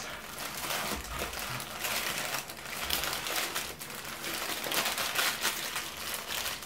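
Paper burger wrapper crinkling and rustling as a hamburger is unwrapped by hand, in a run of irregular crackles.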